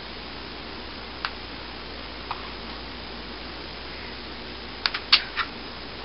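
Metal spoon clicking against dishes as scrambled eggs are scooped and spooned onto the dough: a couple of light clicks, then a quick cluster of sharper clicks about five seconds in, over a steady background hiss.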